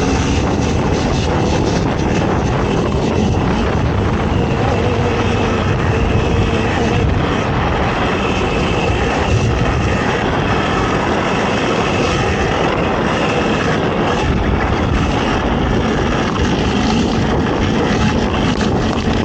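Off-road race vehicle's engine running continuously at a loud, steady level, with rough, noisy track and wind sound mixed in.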